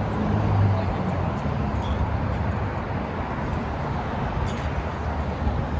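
Steady outdoor traffic noise: a constant rushing hiss with a low rumble, and a low engine hum in the first second or so.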